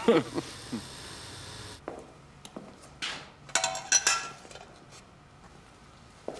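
Metal kettle and enamel mugs being handled: a few knocks, then a cluster of ringing metallic clinks about three to four seconds in, with smaller clinks after.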